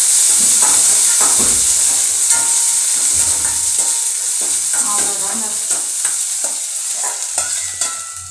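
Onions and greens frying in hot oil in a steel kadai, sizzling while a metal ladle stirs and scrapes the pan, being sautéed to drive off their moisture. The sizzle slowly dies down, and near the end there are a few ringing clinks of metal.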